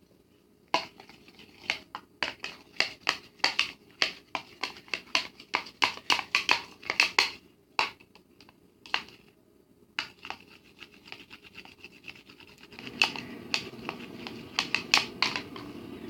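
A spoon scraping and clicking against a bowl as a thick hand-soap-and-salt slime mixture is stirred, in quick irregular strokes with a short pause about eight seconds in. A steady low background noise comes in near the end.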